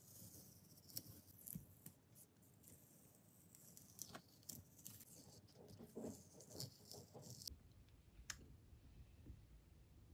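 Faint crackle and rustle of masking tape being peeled off the paper around a gouache painting, with small irregular scratchy ticks. After about seven and a half seconds it gives way to a quiet low room hum with a single click.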